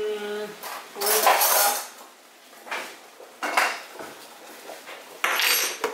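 Kitchenware being handled on a worktop: dishes and cutlery clattering and scraping in four or five short bursts.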